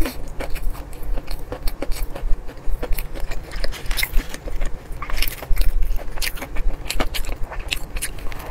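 Close-miked eating of a sesame-seed burger: bites into the soft bun and chewing, heard as a dense run of small crackles and wet mouth clicks.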